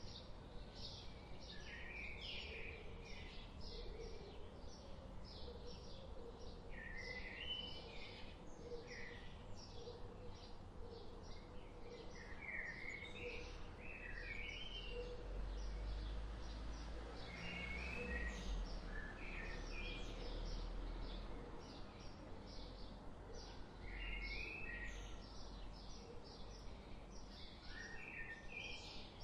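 Wild songbirds chirping and calling, with many short high chirps in quick succession and now and then a short, lower, stepped phrase. A low rumble rises in the middle and fades again.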